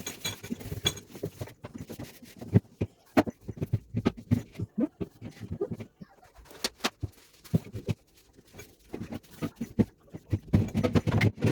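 Irregular knocks and rubbing as the plastic interior and shelves of a fridge are wiped down with tissue paper, busier near the end.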